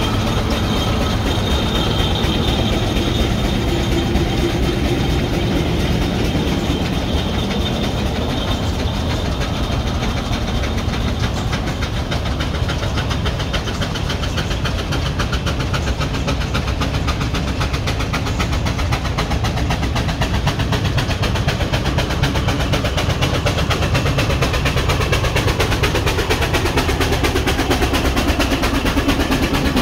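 Steam traction engines driving along the road. There is a steady low rumble as one passes close at the start, which eases off in the middle, then builds again as a second traction engine draws close near the end.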